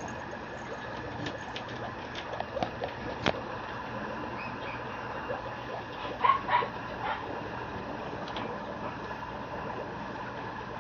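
Mame shiba puppy giving a few short, high cries about six seconds in, over a steady background hiss with scattered light clicks.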